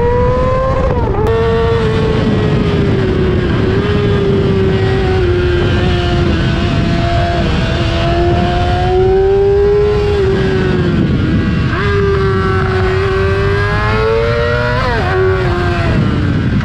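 Yamaha R6 inline-four through an Akrapovic exhaust, revving high under way, its pitch rising and sagging with the throttle. The pitch drops sharply about a second in and again near the end, over a steady low rush.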